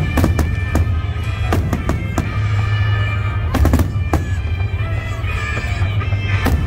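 Fireworks bursting: a string of sharp bangs and cracks at irregular intervals, a cluster of them about three and a half seconds in, over a steady low rumble. Music plays throughout.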